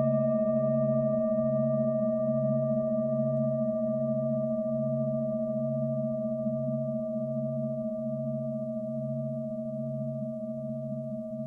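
Tibetan singing bowls ringing: a bowl struck just before rings on with a clear steady tone and slowly fades, over a deeper tone that wavers in a slow, even pulse.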